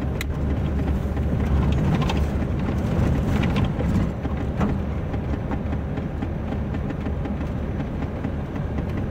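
In-cabin sound of a high-mileage Chevrolet Tavera on the move: steady low engine and road rumble, the engine running smoothly without any unusual noise.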